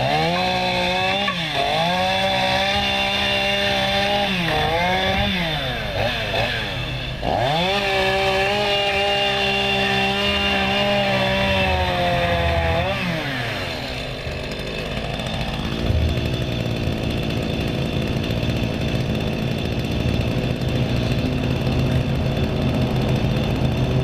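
The two-stroke engine of a new Stihl chainsaw being revved up and down several times, held high for about five seconds near the middle. It then drops back to lower, steady running for the second half.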